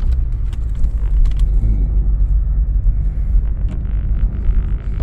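Car engine running, heard from inside the cabin as a steady low rumble, with a few faint clicks over it.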